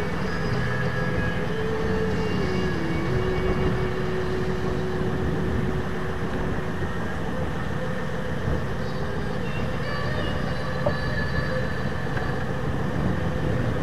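Boat engine running under way: a steady drone mixed with wind and water noise, its pitch dipping slightly about two to three seconds in.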